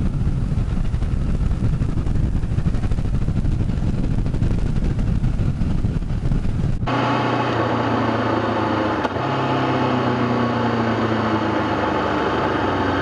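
2013 Honda CB500X's parallel-twin engine with a Staintune exhaust, chugging along at low speed, with low wind rumble on the helmet microphone. About seven seconds in the sound cuts abruptly to a clearer recording where the engine's steady drone stands out.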